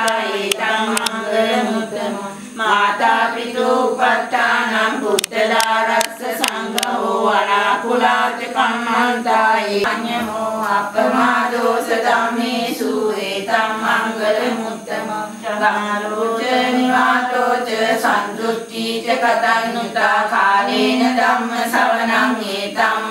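Devotional chanting by several voices, a continuous sung verse with short breaks for breath. A few brief sharp clicks sound about five to seven seconds in.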